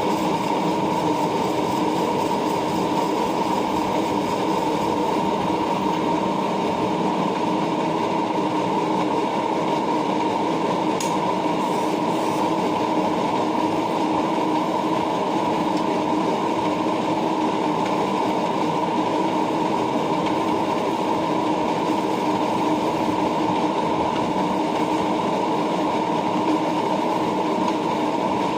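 Lathe running steadily while turning and shaping a nylon gate wheel, an even mechanical hum with a constant whine that does not change in speed.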